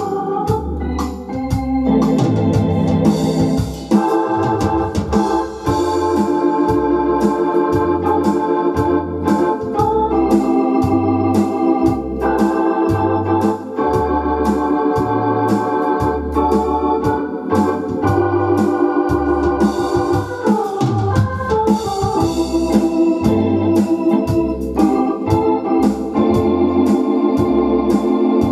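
Hammond M44 Exceed home organ playing an easy-listening fox-trot: sustained chords and a melody over a steady, regular bass beat.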